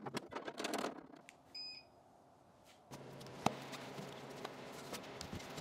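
Clicks and knocks as an InoKraft 7500 W electric garage heater is handled on a wooden stand, and a short electronic beep. About three seconds in, the heater's fan starts a faint, steady run with a low hum, with one sharp click and some cloth rustling over it.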